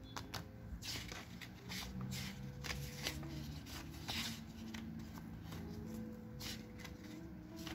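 A small paper instruction booklet being handled and its pages flipped: a series of short, crisp paper rustles and flicks at irregular intervals.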